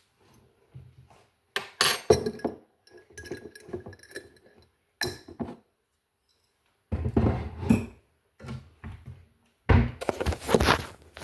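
Spoon scooping dry oats out of a glass jar, clinking against the glass and rattling the oats, in several separate bouts with short pauses between.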